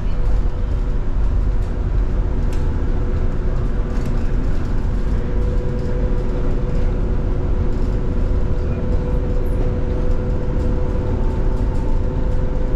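Irizar IE-TRAM bus in motion, heard from inside the cabin: a steady low road rumble with a steady hum over it and a few light clicks and rattles.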